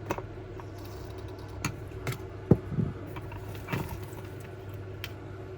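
A few light clicks and taps of small model-locomotive parts being handled on the bench. The sharpest comes about two and a half seconds in, all over a steady low hum.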